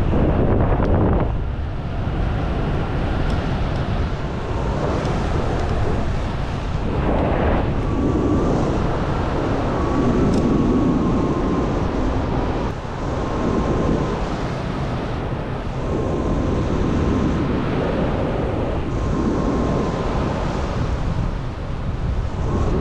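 Wind rushing over the microphone of an action camera in flight under a paramotor wing, swelling and dipping in gusts, with a faint thin whistle in the middle.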